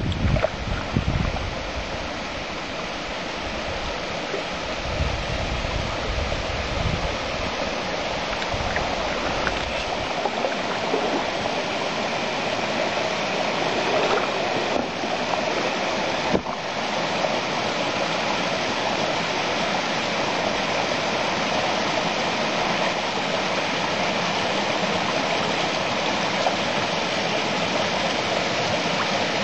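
Steady rushing noise of wind and water, with wind buffeting the microphone in low gusts for roughly the first ten seconds.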